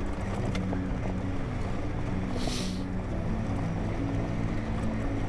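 Honda Africa Twin parallel-twin motorcycle engine running on the move, its pitch shifting slightly with the throttle, with gravel road and wind noise. A short rush of hiss comes about two and a half seconds in.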